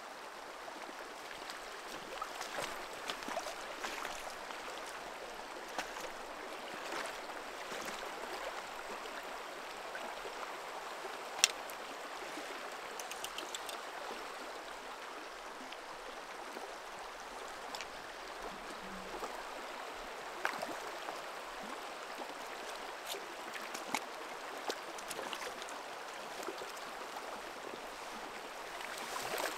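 Steady rush of a shallow river running over stones, with scattered small splashes and clicks. One sharp click about eleven seconds in is the loudest.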